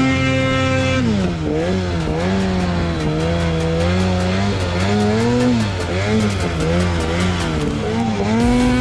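Ski-Doo snowmobile engine running hard through deep powder. It holds a high steady pitch for about a second, then drops and keeps rising and falling as the throttle is worked.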